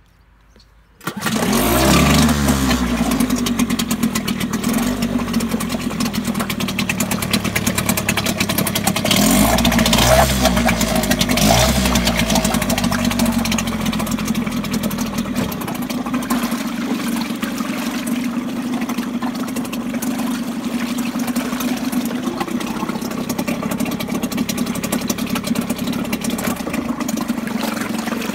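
Suzuki DT4 4 hp two-stroke outboard motor catching and starting about a second in, revving up and down a few times, then settling to a steady idle. Its propeller churns the water in a test barrel.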